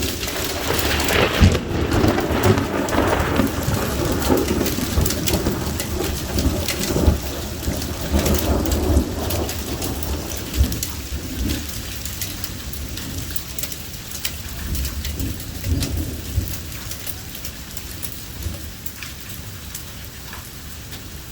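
Thunderstorm: steady heavy rain with many sharp drop ticks, and thunder rolling through the first half before fading away about ten seconds in.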